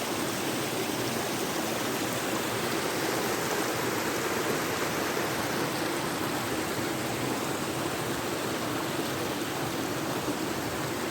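Steady rushing of falling and flowing water from a waterfall and its stream, an even hiss with no breaks.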